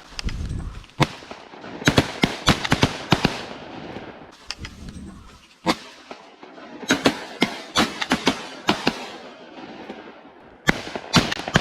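Several shotguns firing rapid volleys at ducks, the shots coming in three main bunches with short pauses between.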